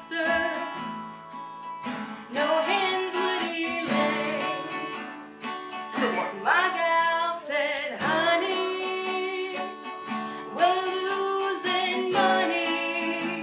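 A woman singing a song to her own strummed acoustic guitar, in phrases with short pauses between them and a wavering, vibrato-like line.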